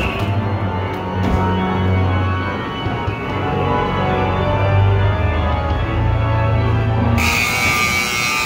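Organ music playing with long, sustained low notes. Near the end a hiss with a steady high tone cuts in and holds for over a second.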